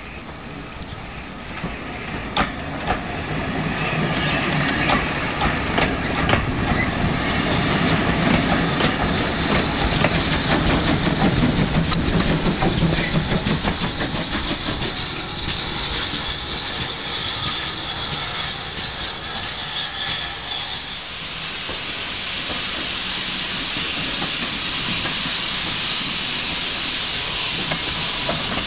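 GWR 57XX pannier tank steam locomotive running past with coaches, with a few sharp clicks, building up as it nears and easing off as it goes by. About two-thirds of the way in it gives way abruptly to a loud, steady hiss of steam from the 0-4-0 saddle tank locomotive.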